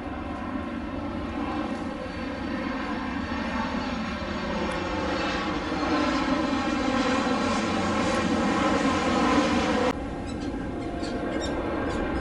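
Boeing 737 MAX 8's CFM LEAP-1B jet engines on landing approach, the roar growing louder as the airliner comes overhead, with a high whine that drops in pitch as it passes. Near the end the roar cuts off abruptly and is replaced by a quieter, more distant jet roar.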